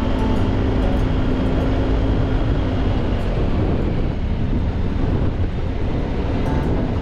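Motorcycle running steadily on the road, its engine under a constant rush of road and wind noise.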